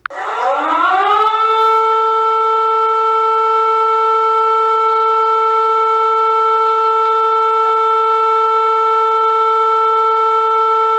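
Civil defence siren winding up in pitch over about a second and a half, then holding one steady tone.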